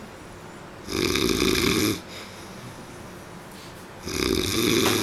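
A sleeping man snoring: two loud snores about three seconds apart, each lasting about a second, with quiet breathing between them.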